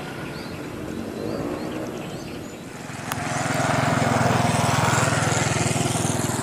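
Motor engine running close by, loud and steady, starting abruptly at a cut about three seconds in, with a high whine that rises toward the end.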